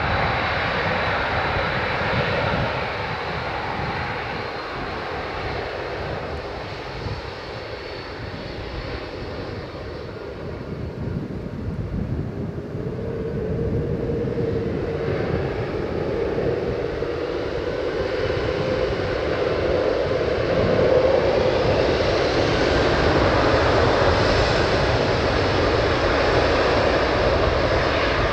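An Emirates Airbus A380-861's four Engine Alliance GP7270 turbofans running with a steady rush. The sound dips a little, then grows louder from about halfway through, and a whine sets in that edges slowly up in pitch.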